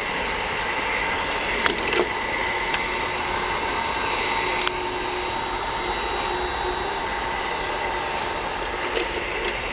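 Hot-air PVC welding machine's heat-gun blower running steadily: a rush of air with a thin, steady whine. A few light clicks, and it drops slightly in level after a click about halfway through.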